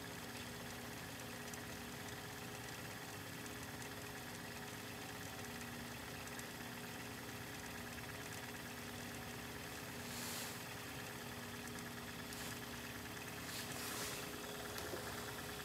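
Faint steady hum of an opened Marantz 5220 cassette deck running, with a couple of soft rustles near the end.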